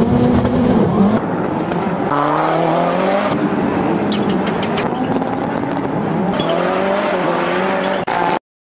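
Race car engines running at high revs across several abrupt cuts, the pitch climbing in places as the car accelerates, with a quick run of sharp clicks about halfway through.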